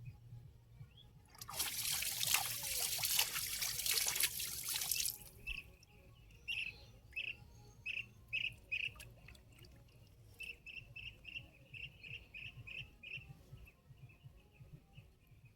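Water splashing and pouring for about four seconds, then a bird calling in a run of short, repeated high chirps, roughly two a second.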